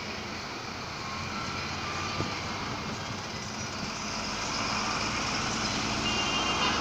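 Road traffic on a city street: a steady wash of engine and tyre noise that grows louder in the second half, with a few short high tones near the end.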